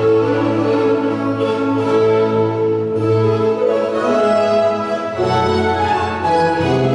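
Baroque courante music played by bowed strings, violins over a cello line, in held, steady notes.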